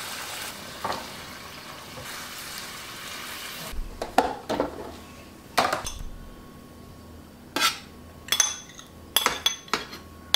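Food sizzling in a frying pan for about the first four seconds. Then a series of sharp clinks and scrapes as a spoon and bowl knock against a stainless-steel compartment lunch box while food is served into it.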